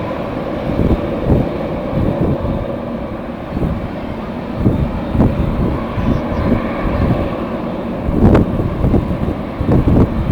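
Strong gusting wind buffeting the microphone, with the rumble of a jet airliner's engines underneath and a sharp gust blast about eight seconds in.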